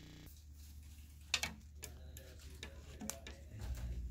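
A few faint scattered clicks and light taps of handling over a low hum, then rubbing as a microfiber cloth starts wiping old thermal paste off the graphics card near the end.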